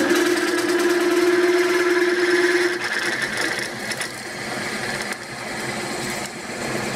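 Milling machine drilling through a stack of clamped metal plates: a steady motor and spindle hum with a fast rhythmic chatter. The hum drops away about three seconds in, and the machine runs on more quietly.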